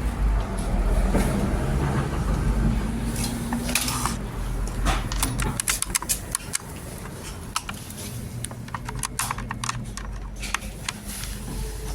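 Low, steady engine-like rumble, with a run of sharp clicks and knocks in the second half.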